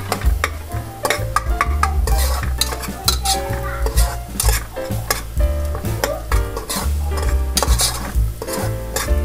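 A steel spoon stirs and scrapes chopped onions frying in oil in a pressure-cooker pot, with sizzling and repeated scrapes and clinks of the spoon on the metal. Background music with a bass line plays underneath.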